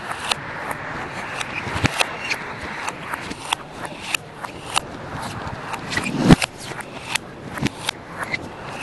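Table tennis rally: the ball clicking sharply off bats and table in quick irregular succession, about two to three hits a second, over a steady background noise, with one louder thump about six seconds in.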